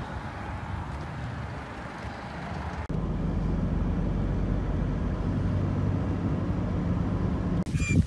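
Steady low drone of road and engine noise inside a car's cabin while driving at speed on a highway. It starts abruptly about three seconds in, after fainter outdoor noise, and cuts off just before the end.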